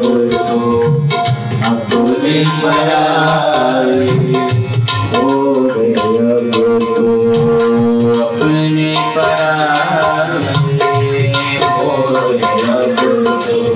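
Harmonium playing a devotional bhajan melody in long held notes, over a steady hand-drum rhythm.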